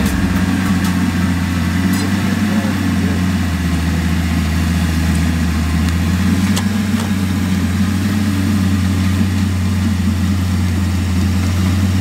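Crawler bulldozer's diesel engine running steadily as the dozer travels, a constant low drone.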